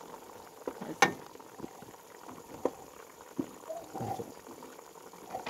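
Beef in sauce simmering in an aluminium pot while the sauce reduces, with a low bubbling and scattered small ticks. A wooden spoon knocks once against the pot about a second in.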